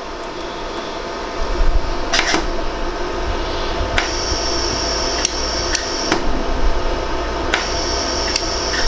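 A 100-joule iWeld jewelry laser welder firing single weld shots into 14K yellow gold, each a sharp click, about eight of them at uneven intervals over a steady machine hum. A high-pitched whine comes and goes between some of the shots from about four seconds in.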